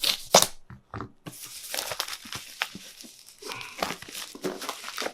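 Packaging crinkling and tearing as a keyboard box is opened by hand, with many small crackles and a brief pause about a second in.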